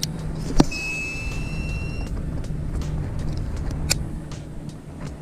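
Small boat motor, likely an electric trolling motor, humming steadily. A sharp click comes about half a second in, then a brief high whine that rises slightly for about a second, and another sharp click near four seconds.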